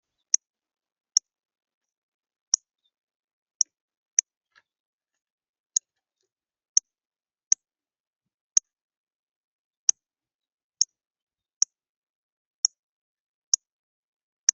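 A small songbird's sharp, high chip calls, about fourteen single notes coming roughly once a second at uneven intervals.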